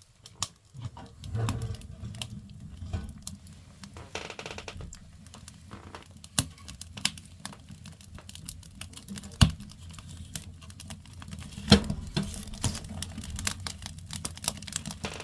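Firewood crackling as it burns in a wood stove: a dense run of small clicks and snaps, with two sharper pops in the second half.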